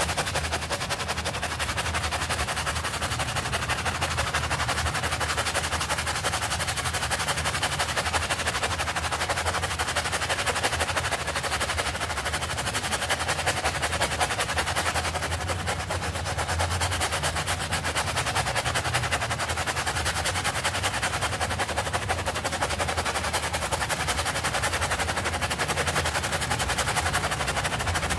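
Stiff plastic-bristled brush scrubbing a soapy carpet sample on a stone surface: rapid, steady back-and-forth strokes through wet foam.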